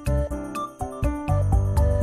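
Background music with a steady beat: a bass line under short, plucky melody notes and regular percussion strikes.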